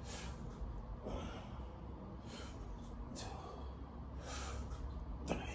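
Heavy, rhythmic breathing of a person doing sit-ups: a short forceful breath about once a second, paced by each repetition. A short sharp click comes near the end.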